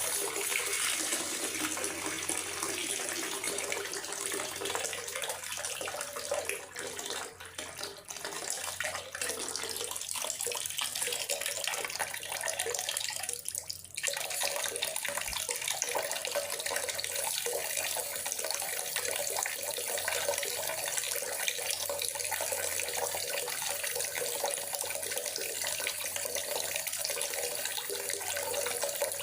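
Steady rain falling in a forest, an even hiss of water that dips briefly twice, about seven and fourteen seconds in.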